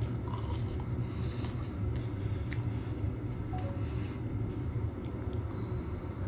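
A heater runs with a steady low hum, and a few faint clicks come from eating French fries.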